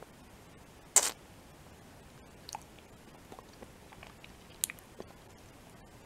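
Wet mouth sounds from sucking on a chocolate lolly on a stick: a loud, sharp lip smack about a second in, another near the end, and a few softer clicks between.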